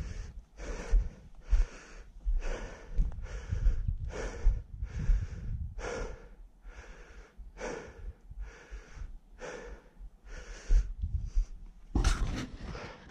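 A man breathing hard and fast close to the microphone, about two breath sounds a second, as he hurries through scrub. Low thuds run underneath, and near the end there is a louder rustle.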